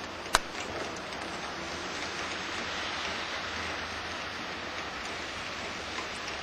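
Steady hiss of a snowstorm, wind and falling snow and sleet, with one sharp click about a third of a second in.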